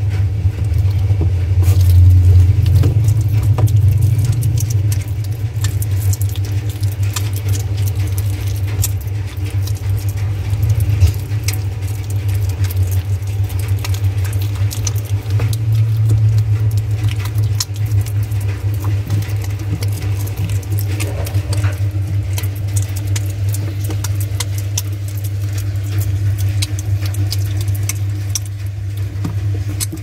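A young otter's claws clicking, tapping and scratching on the perforated stainless-steel drum of a top-loading washing machine as it paws and climbs, over a steady low hum.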